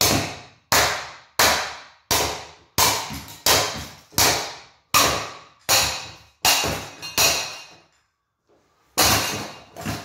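A metal bar repeatedly striking a cheap ceiling fan's motor housing and canopy on a concrete floor. The sharp blows come about every 0.7 s, each ringing out briefly. After a pause of about a second near the end, the blows resume.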